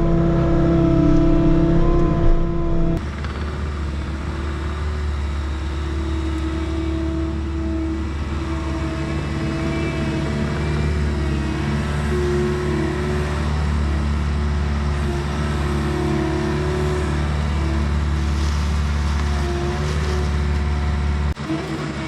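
Bobcat T66 compact track loader's diesel engine running under load: a steady drone whose pitch wavers slightly as the machine works. The sound changes abruptly about three seconds in and again near the end.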